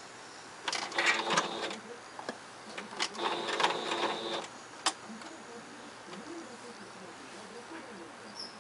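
A Singer Advance computerized sewing machine stitching in two short runs of about a second each, with sharp clicks between and after the runs.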